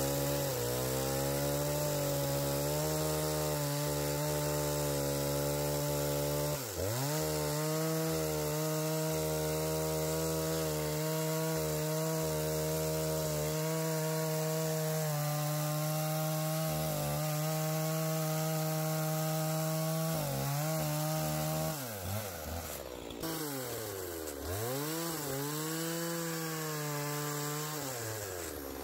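Husqvarna two-stroke chainsaw running at full throttle, cutting through a log. The engine note drops and picks back up about seven seconds in, then falls and rises several times near the end as the throttle is let off and squeezed again.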